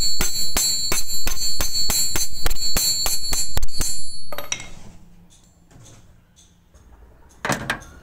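Steel hammer blows on a steel pin in the car jack's lever link, about four strikes a second, each with a bright metallic ring. The blows stop about four seconds in, and one more knock comes near the end.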